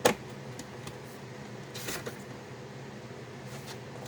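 Products and packaging being handled: a sharp knock right at the start, then a short rustle about two seconds in and a few faint ticks, over a steady low hum.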